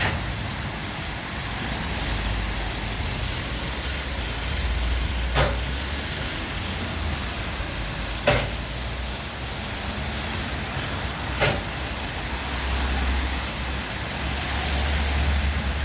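WashTec SoftCare Pro gantry car wash running over the car: a steady hiss of water spray over a low mechanical rumble, with three sharp knocks about three seconds apart.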